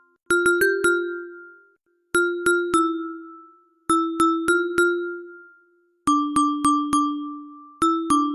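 Tuned percussion struck in short runs of three or four notes, each note ringing out and dying away, with a brief pause between runs.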